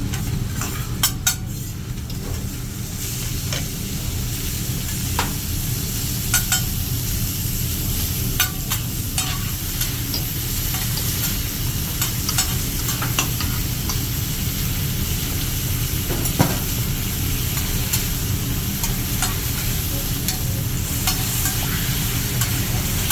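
Food sizzling steadily on a teppanyaki griddle, with scattered sharp clicks and clinks, over a steady low hum.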